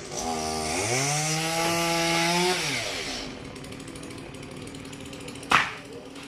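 Chainsaw engine revving up, held at high speed for about two seconds, then dropping back to a steady idle. A single sharp knock sounds near the end.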